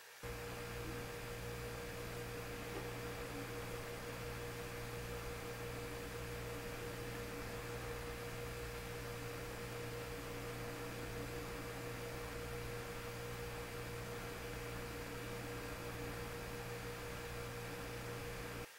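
Steady electrical hum with a clear high tone over a hiss, with no other events.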